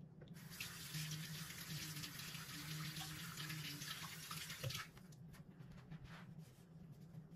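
Water running from a tap for about four and a half seconds, then stopping suddenly.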